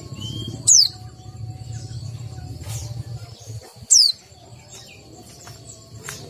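A white-eye (pleci) gives two short, sharp calls, each sweeping down in pitch, about three seconds apart. Keepers take this sound for a bird short of breeding drive, one that is not in full condition (kurang birahi).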